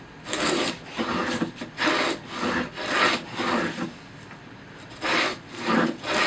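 Stanley No. 48 tongue-and-groove plane cutting a groove along a board's edge: short, repeated hissing strokes of the iron through the wood, with a pause of about a second just after the middle.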